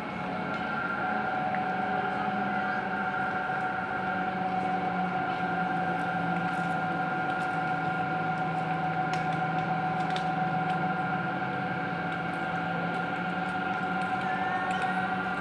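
Aerial cable car running: a steady mechanical hum and whine of rope and machinery, two held tones over a low drone, with a brief rising tone near the end.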